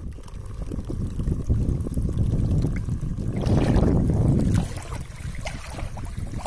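Wind rumbling on the microphone over water splashing and trickling, swelling loudest for about a second midway.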